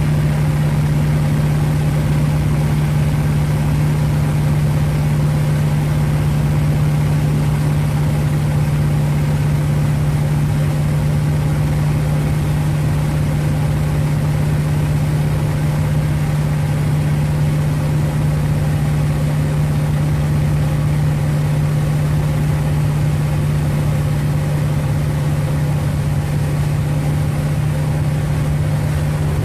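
North American T-28 Trojan's radial engine running steadily at constant power: a loud, even drone with a strong low hum and no change in pitch.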